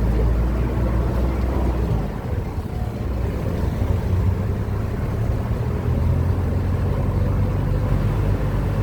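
Steady low rumble of a motor vehicle's engine and road noise.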